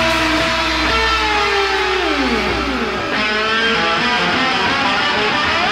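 Live rock band music with electric guitars: held notes slide down in pitch, the bass drops out about three seconds in, and wavering, wobbling guitar tones follow.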